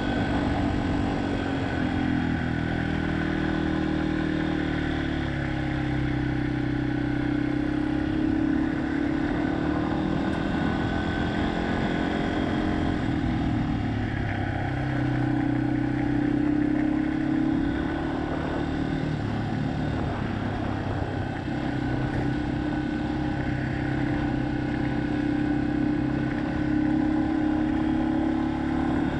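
Yamaha XT250's air-cooled single-cylinder engine running as the motorcycle is ridden. Its pitch sags and climbs again a few times.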